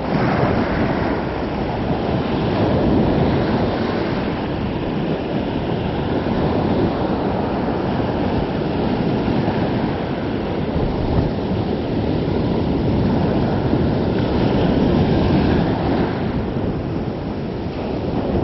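Small surf breaking and washing up the sand close by, swelling and easing every few seconds, with wind buffeting the microphone.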